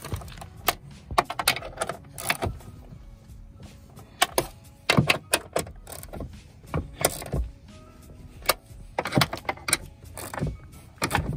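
Wrench tightening the 12 mm bolts on a car door's hinges: irregular clusters of sharp metallic clicks and clinks.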